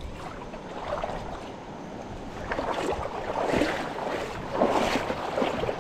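Water splashing irregularly, in stronger bursts from about halfway through, over the steady rush of a river.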